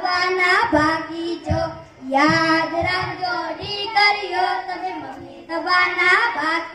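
A child's voice singing a Gujarati qawwali, amplified through a microphone and loudspeaker, in long gliding sung phrases over a beat of low knocks.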